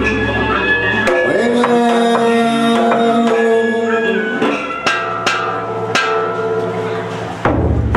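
Traditional Vietnamese ritual ensemble music: held melodic notes over percussion, with several sharp drum or clapper strikes in the second half.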